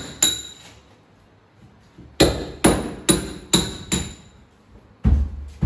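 Hand hammer striking to break out an old kitchen countertop: one sharp blow, a pause, then five blows about two a second, each with a short metallic ring. Near the end a louder, deeper run of knocks begins.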